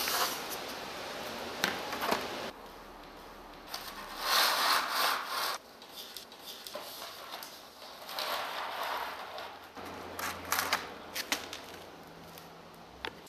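Paintbrush scrubbing wet black tile grout onto rough cement-coated foam rock panels, heard as stretches of scratchy rubbing, mixed with knocks and scrapes as the panels are shifted on cardboard.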